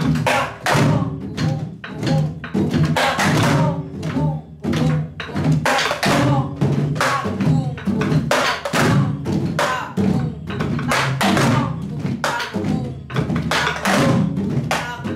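Several Korean buk barrel drums beaten with sticks in the fast jajinmori rhythm, with a voice singing along over the drumming.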